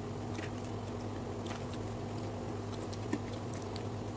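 Someone chewing a mouthful of sushi, with faint scattered mouth clicks and one sharper click about three seconds in, over a steady low hum.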